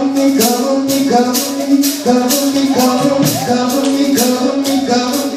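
Gospel praise music with held chords and a steady beat of bright percussion hits, about two a second.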